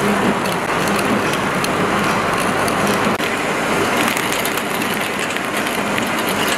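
Paper straw making machine running: a steady mechanical din with rapid fine clicking as paper straws clatter along its steel output conveyor. The sound changes briefly about three seconds in.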